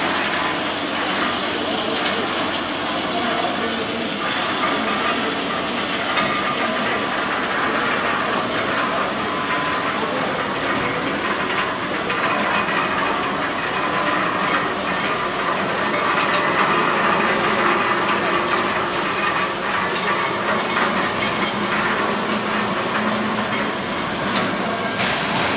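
Mini continuous olive-oil extraction machine running: a steady, dense mechanical whirring and rattling noise that does not let up.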